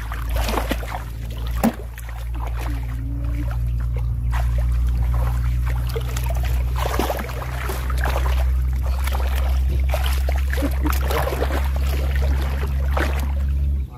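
Hands splashing and rustling in shallow muddy water among rice-field grass, with irregular small splashes and clicks, over a steady low rumble that cuts off abruptly near the end.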